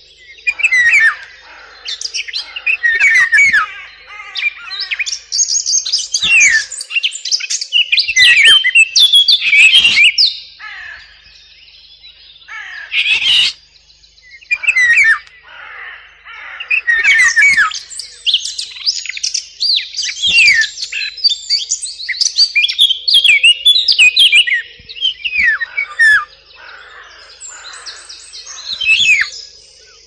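Recorded songbird song played as a hunting lure, including the song of the Eurasian blackcap. Quick, varied warbling phrases and chirps come in bursts, with short pauses between them.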